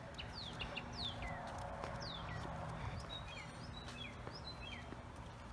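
Small birds calling: scattered short, high chirps, many of them sweeping downward, over a faint steady background noise.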